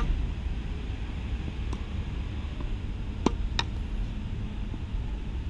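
Steady wind rumble on the microphone outdoors, with a tennis serve struck right at the start. About three seconds in come two sharp knocks a third of a second apart, typical of a tennis ball bouncing on a hard court.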